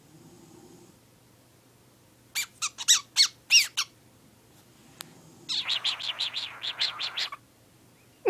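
Lutino cockatiel calling: a quick string of about six loud, short squawks with sweeping pitch, then a couple of seconds later a rapid raspy chattering run of about ten notes, its newly learned sound.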